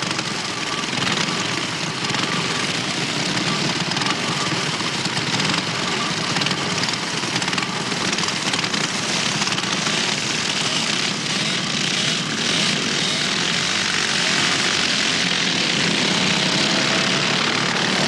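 Many small lawnmower engines running together as the racing mowers go round, a dense steady din that grows a little louder near the end.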